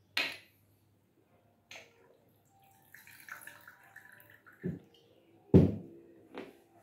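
Cachaça poured from a glass bottle into a small cup, a short thin gurgling pour in the middle, opened by a sharp click and followed by the bottle being set down on the table with a couple of thuds, the second one loudest.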